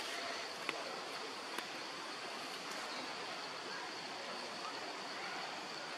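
Steady outdoor background hiss with a thin, steady high whine running through it, and a couple of faint small clicks about a second in.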